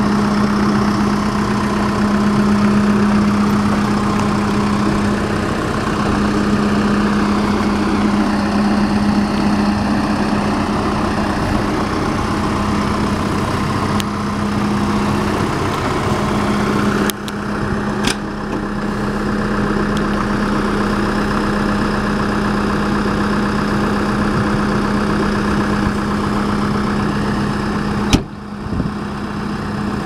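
Case 580N backhoe loader's four-cylinder diesel engine idling steadily with an even hum, broken by a couple of brief knocks, the louder one near the end.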